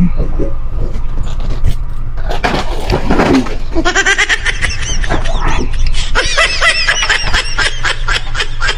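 A high-pitched cartoon 'troll' laughing sound effect, a rapid run of ha-ha bursts starting about four seconds in and going on to the end, over a steady low hum. Just before it comes a short voiced sound that falls in pitch.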